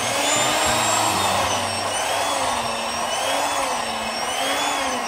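Electric hand mixer with spiral dough hooks running steadily in stiff bread dough in a stainless steel bowl. The motor's whine wavers up and down in pitch about once a second.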